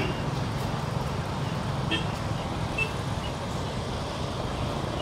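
Steady low rushing noise of a swollen, fast-flowing river in flood, mixed with road traffic, with a couple of faint short beeps about two seconds in.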